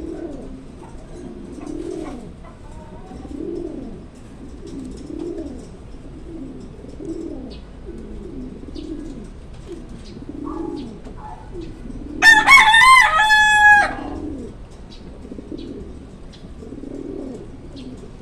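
Blue bar racing pigeon cock cooing over and over, a low rolling coo about every second or so. About twelve seconds in a rooster crows once, loudly, for a little under two seconds.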